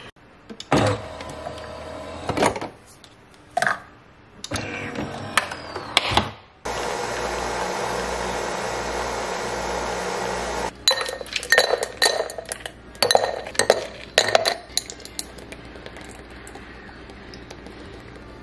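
Single-serve coffee maker brewing into a glass cup: a steady hum and hiss for about four seconds that cuts off suddenly. Around it, knocks and handling, then a run of glass clinks.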